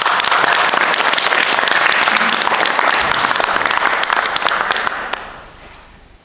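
Audience applauding, dense clapping that fades away about five seconds in.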